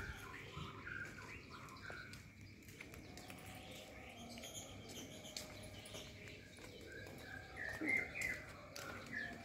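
Small birds chirping in short repeated calls, sparse in the middle and busiest and loudest about eight seconds in, over a faint steady high tone.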